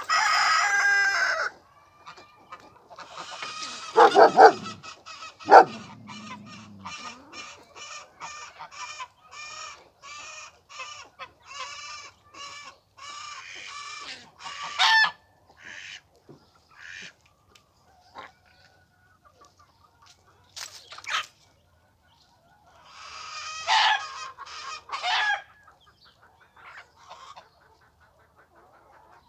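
Chickens calling and clucking: a loud squawk at the start, then a long run of rapid, evenly repeated clucks, and another loud burst of calls later on.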